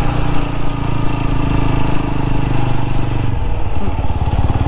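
TVS Apache RTR 200 4V's single-cylinder engine running as the bike is ridden. About three seconds in, the engine note drops to a lower, evenly pulsing beat.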